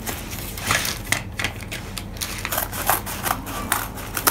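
Scattered small clicks and rustles of small items and packaging being handled.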